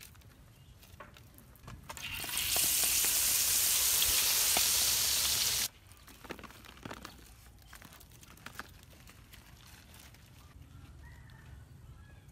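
Crickets deep-frying in hot oil: a loud, even sizzle that starts about two seconds in and cuts off abruptly a few seconds later. Faint clicks and rustles come before and after it.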